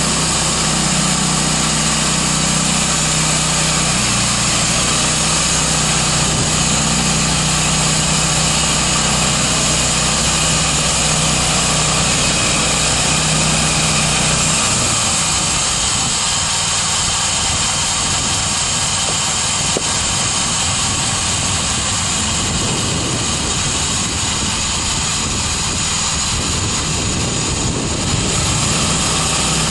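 The 13 HP Honda single-cylinder engine of a band sawmill running steadily. About halfway through, its steady low hum breaks up into a rougher sound.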